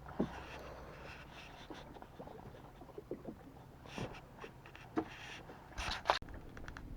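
Scattered light knocks and clicks over a low steady hum, the loudest few coming near the end.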